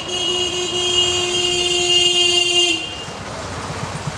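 A vehicle horn sounding one steady, held note for nearly three seconds, then stopping, with street traffic noise behind it.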